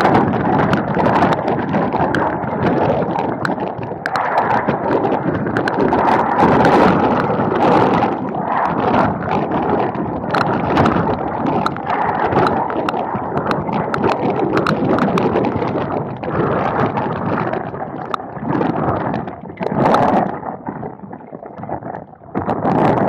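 Gusty storm wind buffeting the camera microphone, with raindrops spattering on the camera as sharp ticks. The gusts ease briefly twice near the end.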